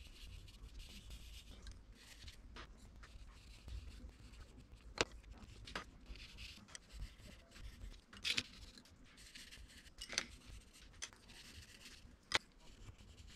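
Coloured pencil shading on paper: faint scratchy strokes in short spells, with a few sharp clicks.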